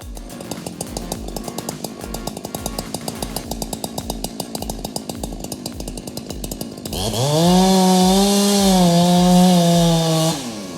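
Chainsaw running at low speed with a fast, even patter, then about seven seconds in revved up to full throttle, held for about three seconds, and let back down near the end. A steady music beat runs underneath.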